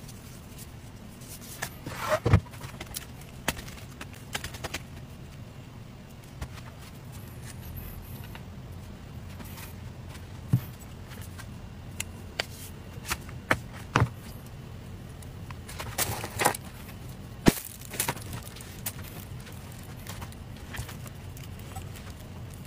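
Scattered light taps and knocks as an electric crepe maker and a steel plate are handled, over a steady low hum.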